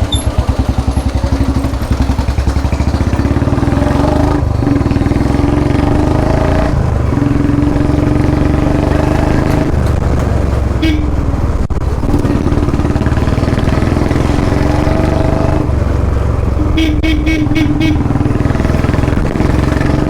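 Royal Enfield Bullet 350's single-cylinder engine through a long Punjab-style exhaust, thumping at low revs at first, then pulling under throttle, its pitch dropping and rising again every few seconds as it changes gear. A vehicle horn beeps rapidly several times near the end.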